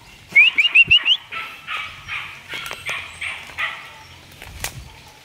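Chicken crying out in alarm as it is chased: a quick run of five short rising squawks, then a string of harsher cackles about three a second. A single thump comes about four and a half seconds in.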